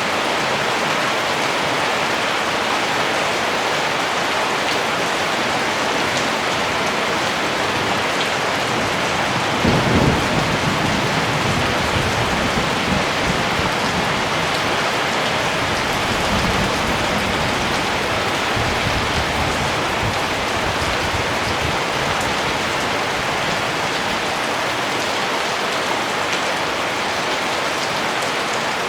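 Steady rain falling. About ten seconds in, a low rumble of thunder swells up and dies away over roughly ten seconds.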